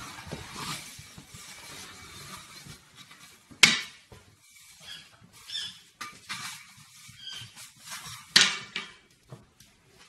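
A push broom knocking and scuffing on a wooden floor as a raccoon grabs and tumbles with it. Soft scattered rustles are broken by two sharp knocks, about three and a half and about eight seconds in.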